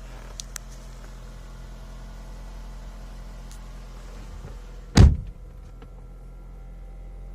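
A steady low hum, with a couple of faint clicks early and one loud, short thud about five seconds in, followed by a few light ticks.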